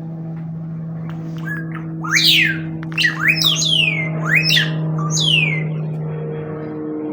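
A bird's loud whistled calls: about five high notes, each sweeping steeply down, coming in quick succession over a steady low hum.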